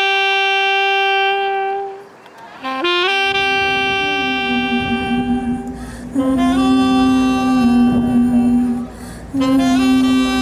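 Saxophone playing long held notes, scooping up into each one. A second, lower held line joins about three seconds in, and the notes keep changing in slow steps.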